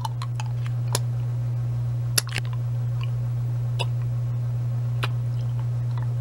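A steady low hum, with a few short sharp clicks spread through it.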